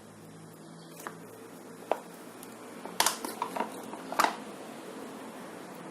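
A few light clinks and knocks of kitchen utensils against a pan, spread out about a second apart, over a faint steady background hum.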